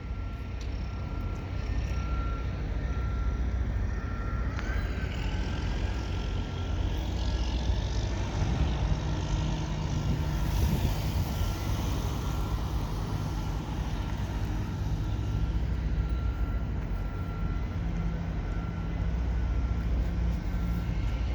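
Outdoor street traffic with a steady low engine rumble; a vehicle passes, loudest around the middle. A reversing alarm beeps repeatedly, mostly in the first few seconds and again near the end.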